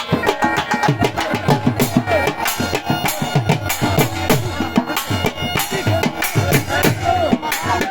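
Background music with a steady drum beat and a melody, laid over the video.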